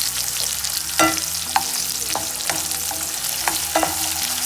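Onion, tomato and spices sizzling in hot oil in a pan while a spatula stirs them, with several sharp scrapes and knocks of the spatula against the pan. The onion is softened: the sauté is nearly done before the water goes in.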